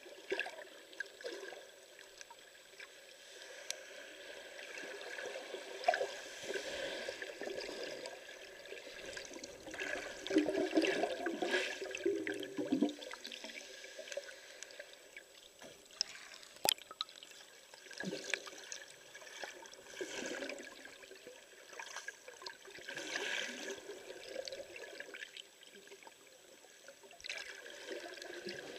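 Underwater water noise heard with the microphone submerged: muffled sloshing and bubbling, with scattered sharp clicks and a louder stretch of bubbling about ten seconds in.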